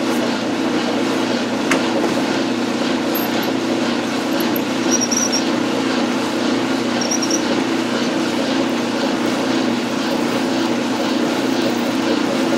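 Metal lathe running steadily while a 7/32 in. drill bores a tap hole into a stainless steel bar. A couple of faint, short high squeaks from the cut come about five and seven seconds in.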